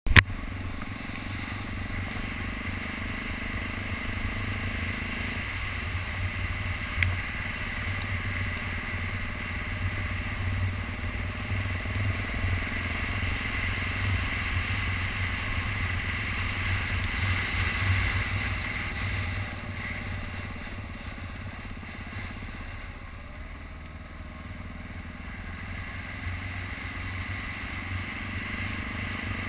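2012 BMW G650GS Sertao's single-cylinder engine running under way on a dirt road, with a steady low rumble. A sharp knock comes right at the start; past the middle the sound eases off for a few seconds and builds again near the end.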